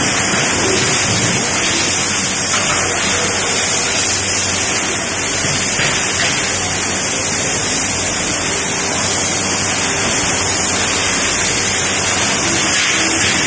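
Steady, loud hiss of an aluminium die-casting machine cell running, with release-agent mist spraying onto the open die at the start.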